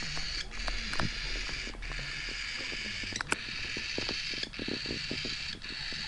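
Handling noise close on the microphone: small irregular scratches, taps and rubbing from a hand and a bird's feathers, over a steady hiss. The clicks come thickest in the second half.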